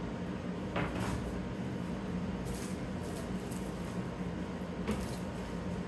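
Plastic-wrapped slot car track sections being handled and set down: a few light rustles and clicks over a steady low hum.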